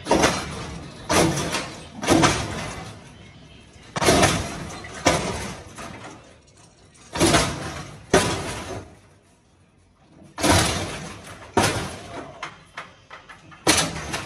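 Hydraulic lowrider car hopping, slamming down onto the pavement over and over: about ten heavy bangs with clatter, mostly in pairs about a second apart. Near the end a landing breaks a front wheel off the car.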